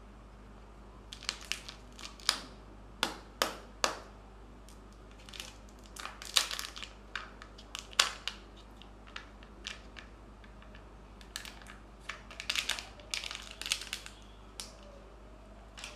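A Kinder Joy plastic egg capsule being pulled apart and opened by hand: a run of sharp plastic clicks and cracks, then crinkling as the foil seal is peeled off the chocolate half near the end.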